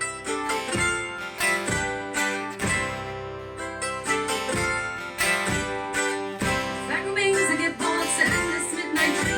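Acoustic guitar strumming chords in a steady rhythm, with a strong stroke about once a second, as part of a live folk song.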